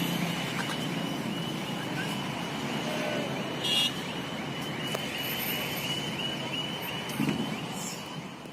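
Steady motor-vehicle noise with a thin steady whine on top, and a short high beep about three and a half seconds in; it fades out at the end.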